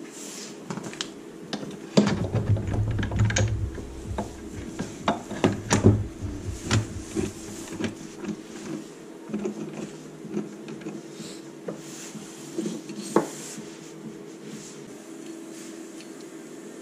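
Steel transmission gears and shafts of a Suzuki SV650 gearbox clicking and knocking together as they are handled and set into the aluminium crankcase half. The clatter is busiest in the first half, then thins to scattered clicks with one louder knock later on.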